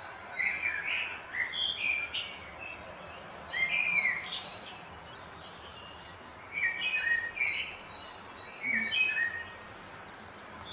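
Songbirds singing in several short bouts of quick, varied chirping notes, with pauses between the bouts.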